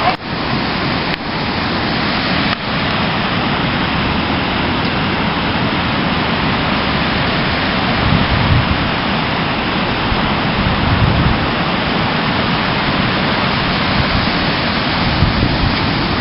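Strong wind rushing and buffeting the microphone, a steady loud roar with deeper gusts rumbling in a few times.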